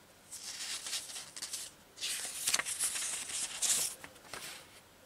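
Sheets of graph paper rustling and sliding as they are handled, in two longer stretches and a short third one near the end.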